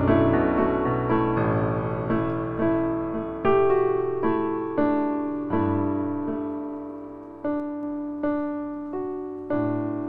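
Background piano music: a slow melody of single struck notes and chords, each note fading away after it is played.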